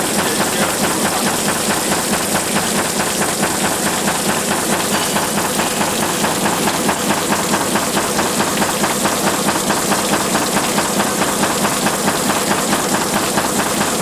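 Shaking table running, its head motion driving the deck back and forth in a fast, even, knocking rhythm, along with the wash of ore slurry and water over the table.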